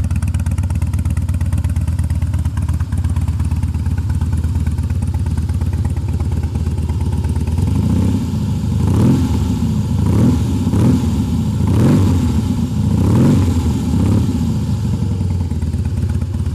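2007 Harley-Davidson Heritage Softail's Twin Cam V-twin idling through slip-on RC mufflers, then blipped about six times in the second half, each rev rising and falling back to idle.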